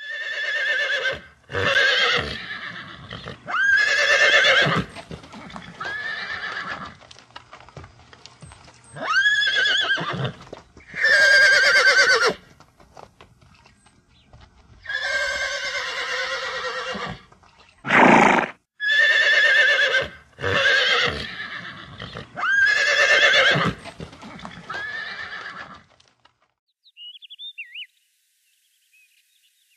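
Horses whinnying: about a dozen loud calls, each with a quavering pitch, some run close together and others spaced a few seconds apart. Near the end a few faint bird chirps follow.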